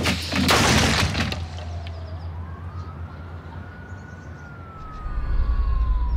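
A siren's wail: one tone that rises, holds and then slowly falls, over a steady low drone. A few short, loud whooshing bursts open it in the first second.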